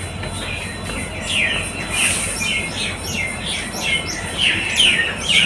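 A flock of birds chirping together: many short, overlapping falling chirps that grow denser from about a second in.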